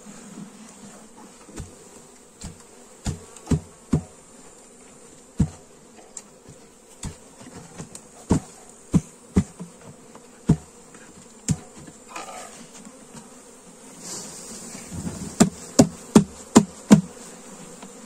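Honeybees buzzing steadily while the hive parts they cling to are knocked again and again to shake the bees down into the hive. The knocks come irregularly, with a quicker run of the hardest knocks near the end.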